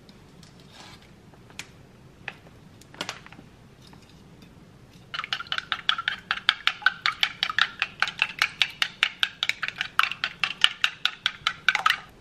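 Chopsticks beating eggs in a wooden bowl: a fast, even clicking of wood on wood, about five strokes a second, starting about five seconds in. Before that, a few light taps.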